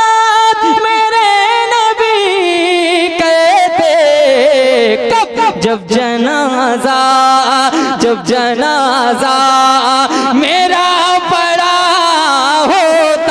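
A male voice singing a naat, amplified through a microphone, drawing out long melismatic notes with no clear words. It holds a note, slides slowly downward over several seconds, then carries on in wavering, ornamented phrases.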